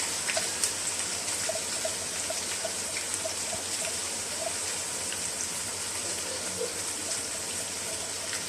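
Finely chopped onions sizzling in hot oil in a pot, a steady hiss with scattered small crackles as they soften.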